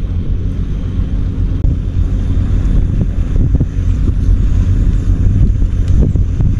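Wind buffeting the microphone outdoors by the sea, a loud, steady low rumble, with a few faint knocks scattered through it.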